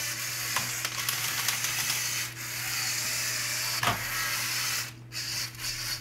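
Lego Technic RC car's Power Functions drive motor and gear train whirring steadily as the car drives in low gear, then stopping about five seconds in.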